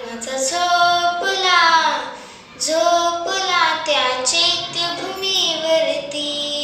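A girl singing a Marathi song solo, with no accompaniment: phrases of long held notes that slide between pitches, one phrase falling away about two seconds in.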